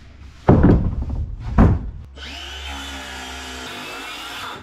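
Two heavy wooden thumps as a long mahogany board is set down on the plywood workbench, then a Makita cordless circular saw running steadily with a motor whine for about two and a half seconds, cutting off suddenly near the end.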